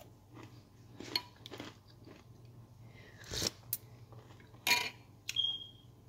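Someone biting and chewing a crisp keto everything cracker, a few irregular crunches with the loudest about three and a half seconds in and again just before five seconds.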